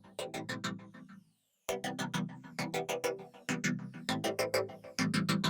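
Electronic background music with synthesizer and keyboard notes over a beat, with a brief dropout about a second in.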